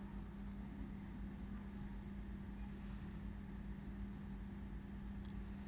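Steady background room tone: a low hum with a faint rumble and hiss beneath it, unchanging throughout, with no distinct event.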